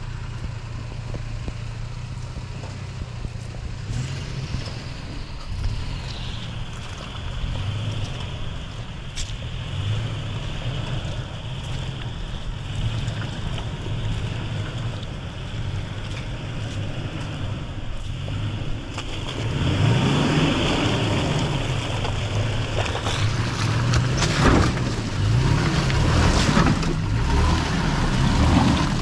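Pickup truck engines working through deep mud, the engine note swelling and falling. From about two-thirds of the way in, the revs rise and fall harder and the tires churn and splash through the mud, louder than before.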